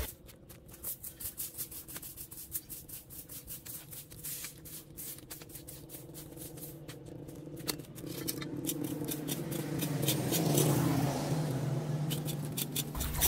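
Plastic broom sweeping dry leaves and grit across concrete in quick, irregular scratchy strokes; near the end a small hand rake scrapes debris off a metal drain grate. A low steady hum swells in the background around ten seconds in.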